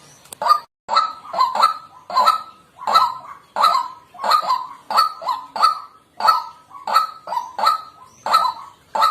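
White-breasted waterhen calling in a steady run of short, harsh 'kwak' notes, about three a second, with no pause.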